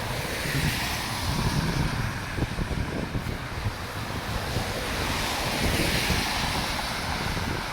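Snowstorm wind gusting and buffeting the microphone, a steady rushing hiss with uneven low rumbles.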